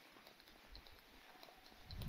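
Near silence: faint outdoor ambience with a few faint, irregular ticks.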